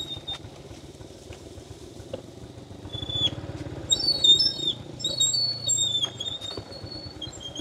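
Small motorcycle engine running faintly as the bike rolls down a dirt path. From about three seconds in come repeated short, high-pitched squeaks.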